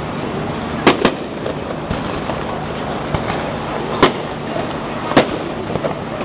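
Fireworks going off: two sharp bangs close together about a second in, then single bangs about four and five seconds in, over a steady rush of background noise.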